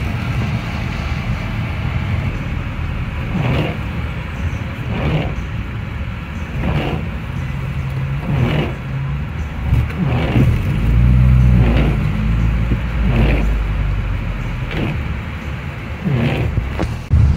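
Classic Mini's A-series engine running under way, heard from inside the cabin, with the windscreen wipers swishing across the wet glass about every second and a half.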